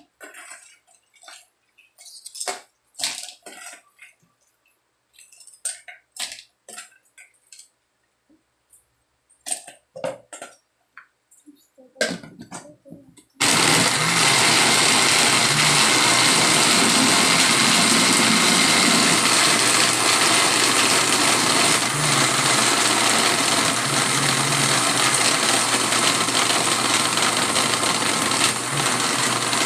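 Scattered clicks and knocks as ingredients are spooned from a plastic bowl into a countertop blender jar. About halfway through, the blender's motor starts abruptly and runs steadily at one speed, blending a shake, then stops at the very end.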